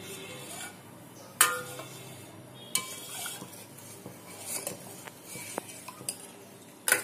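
Long steel spoon stirring heating milk in a stainless steel pot, scraping and clinking against the metal. Three sharp clinks stand out, the loudest about a second and a half in, with softer scrapes between.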